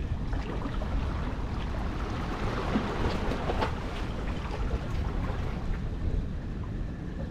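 Small sea waves lapping and washing over shoreline rocks, with wind rumbling on the microphone; the wash swells a little about three seconds in.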